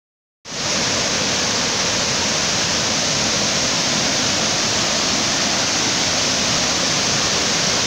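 Waterfall: the loud, steady rush of falling water, starting about half a second in.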